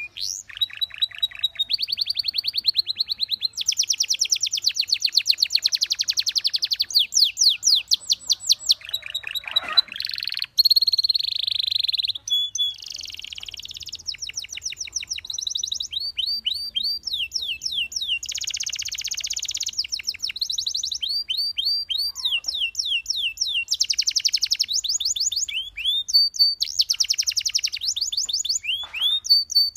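Belgian canary singing a long unbroken song of fast trills. Each phrase is a rapid run of the same short note repeated many times, and it switches to a new trill every second or two.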